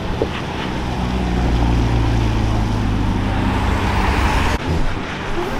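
Car engines running at steady low revs, a deep even drone; the sound dips suddenly and changes about four and a half seconds in.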